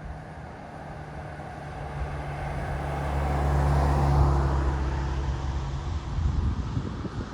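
A motor vehicle drives past, its engine and tyre noise growing louder to a peak about four seconds in and then fading away.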